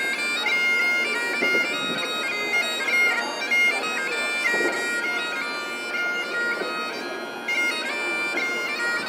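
Great Highland bagpipes playing a tune: a melody moving from note to note over the steady, unbroken sound of the drones.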